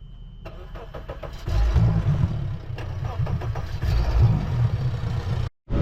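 An engine starts about a second and a half in and runs with a loud, uneven low rumble, then cuts off abruptly near the end.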